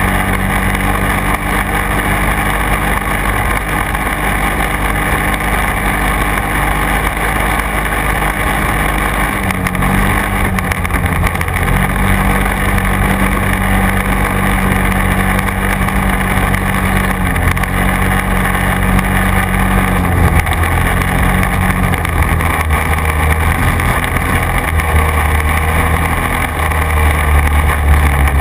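Quad bike engine running steadily under way, heard from on board, its pitch shifting about ten seconds in and again about twenty seconds in, with the low rumble growing louder near the end.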